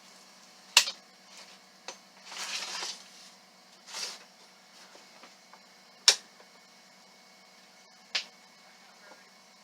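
Steel high-lift jack being worked against a rusted-on wheel: four sharp metallic clacks a second or more apart, the loudest about a second in and about six seconds in, with two short rasping noises between them.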